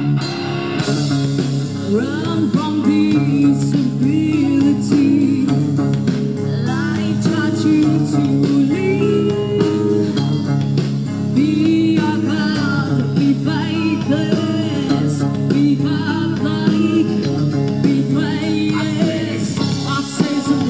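Rock band playing live: electric guitar, bass and drums, with singing.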